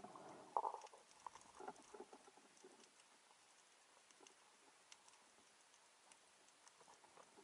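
Faint underwater ambience picked up through the camera underwater: a few soft knocks and rustles in the first two seconds, then sparse faint crackling ticks over a quiet hiss.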